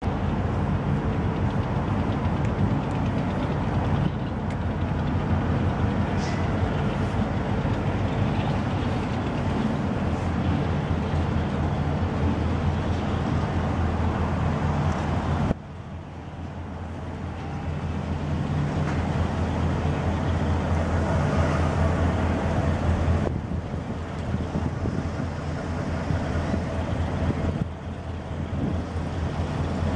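Diesel-electric freight locomotive's engine rumbling steadily as the train approaches slowly, under a broad noisy rush that drops away suddenly about halfway through.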